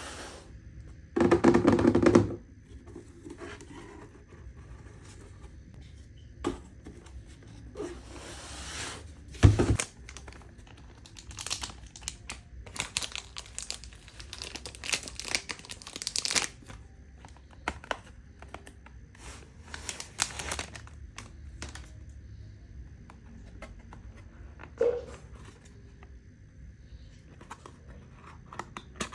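Parcel packaging being opened by hand: a loud rip about a second in, like tape being torn off, a single thump, then repeated crinkling and rustling of paper or plastic wrapping.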